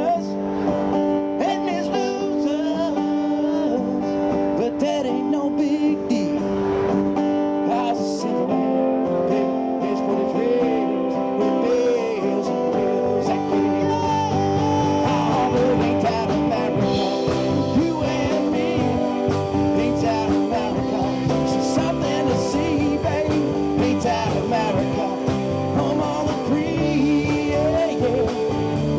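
Live band playing a rock song: a male lead singer over electric and acoustic guitars and a drum kit. The drums fill out partway through, with a steady cymbal beat from a little past the middle.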